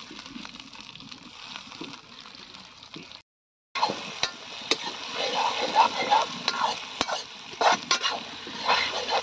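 Sliced onions and chopped tomatoes sizzling in hot oil in a kadai. After a brief silent break about three seconds in, a metal ladle stirs and scrapes the vegetables around the pan, with repeated sharp clinks against the metal.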